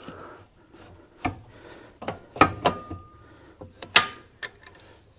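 Metal clanks and clicks from a manual tire changer being worked on a small wheel, with a brief thin squeak near the middle.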